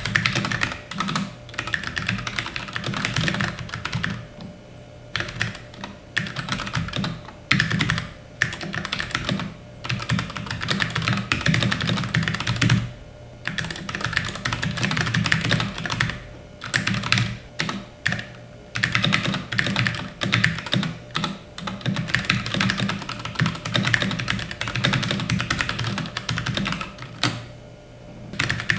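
Keychron K6 aluminium-frame mechanical keyboard being typed on: fast runs of keystroke clicks broken by short pauses every few seconds.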